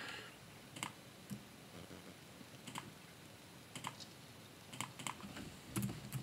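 Faint, scattered clicks of computer keys and input taps, about a dozen at irregular intervals, with a small cluster near the end as a keyboard shortcut is pressed.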